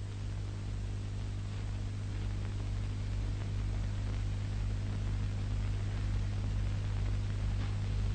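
Steady low hum over an even hiss, with no narration or music: the background noise of an old film soundtrack.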